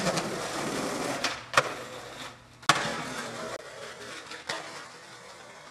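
Skateboard wheels rolling on concrete, with three sharp clacks of the board striking the ground: one about a second and a half in, a louder one near the three-second mark and a smaller one later. The rolling fades out towards the end.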